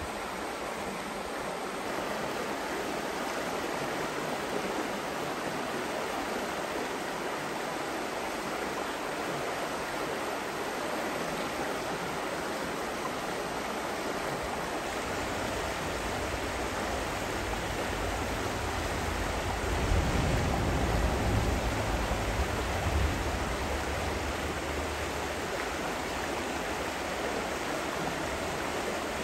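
Shallow rocky creek rushing over stones and small falls, a steady rush of water. A low rumble swells under it for several seconds past the middle.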